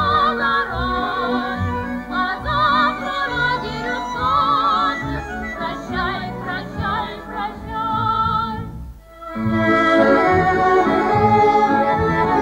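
A song: a voice singing with strong vibrato over instrumental backing. About nine seconds in the music drops out briefly, then comes back as steady sustained instrumental chords without the wavering voice.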